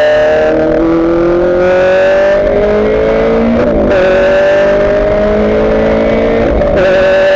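Ferrari F430 GT race car's V8 engine accelerating hard, heard from inside the cockpit: the pitch climbs steadily through the gears, with two quick upshifts, about halfway through and near the end, each dropping the pitch before it climbs again.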